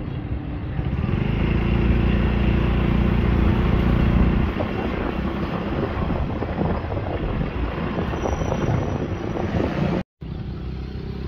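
Motorcycle tricycle engine running during a ride, with wind rushing over the microphone; the engine is loudest in the first four seconds or so, and the sound drops out briefly near the end.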